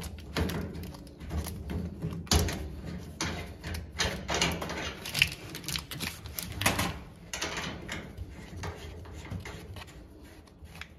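Hand work on a gas range connection: a flexible gas connector's flare nut being threaded onto the range's inlet fitting and an adjustable wrench set against it, giving irregular small clicks, taps and scrapes of metal parts being handled.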